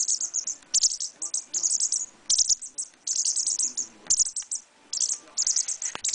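Japanese wagtail chick giving shrill, rapid, high-pitched chirps in short bursts, one after another: a young hand-reared chick calling for attention and food.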